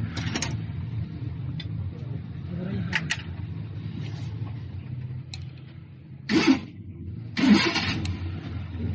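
Diesel engine running with a steady low rumble, broken by several short, loud bursts of noise, the loudest about six and a half and seven and a half seconds in.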